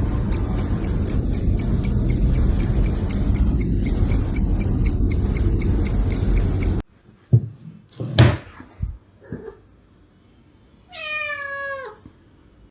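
Hot water left running, a steady rushing noise with a fast regular ticking over it, cut off about seven seconds in. A few soft knocks follow, then a cat meows once near the end, a call about a second long that falls in pitch.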